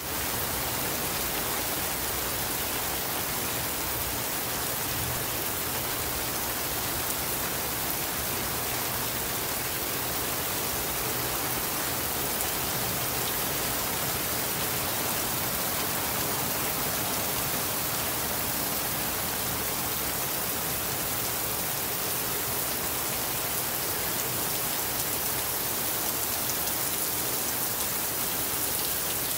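Steady, even downpour of monsoon thunderstorm rain.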